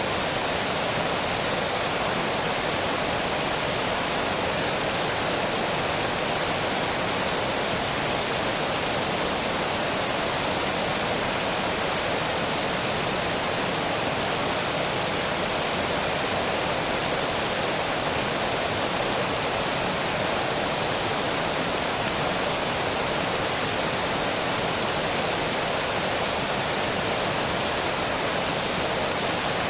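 Water pouring over a small dam, a steady, even rush with no breaks.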